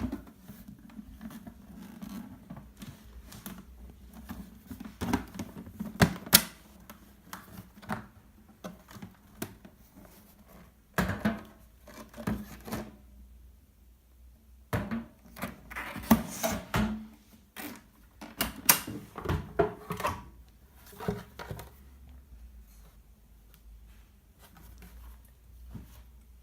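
Hermes Baby portable typewriter clacking: irregular runs of sharp key and typebar strikes and mechanism clicks. There is a brief pause about halfway, and the clicks fade to faint near the end.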